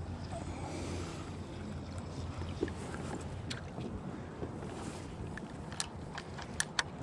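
Small gear noises on a kayak: a few sharp clicks and knocks, one about halfway through and several close together near the end, over a low hum that fades out in the first second or two.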